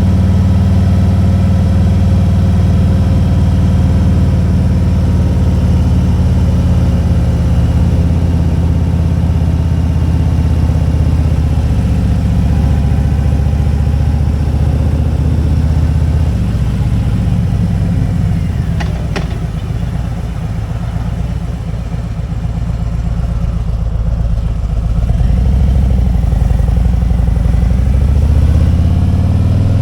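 Motorcycle engine running on the road, easing off partway through to a lower, quieter note for several seconds, then climbing in pitch again as it accelerates near the end. A brief sharp click sounds just before the lull.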